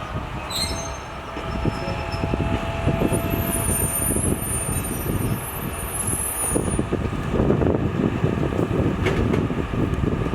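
A 209 series railcar rolling slowly along the track with a steady low rumble of wheels on rail, and a high-pitched wheel squeal briefly about half a second in and again for about four seconds from around three seconds in.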